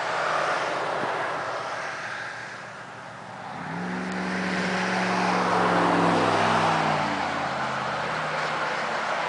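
Rushing, gusting noise like wind on the microphone, with a low engine drone coming in about four seconds in and dying away near the end.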